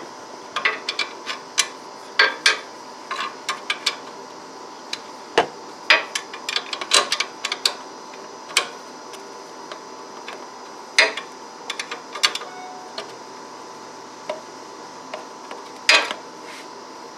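Irregular metallic clicks, clinks and knocks from hand tools working the adjusting bolts of a Scag Tiger Cat's electric blade clutch while its air gap is being set, with a few louder knocks.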